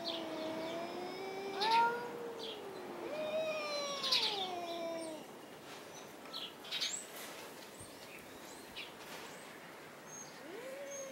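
Two domestic cats caterwauling at each other in a standoff rather than a fight: long, drawn-out yowls that slide up and down in pitch, the two voices overlapping for the first five seconds. After a lull, another yowl starts near the end.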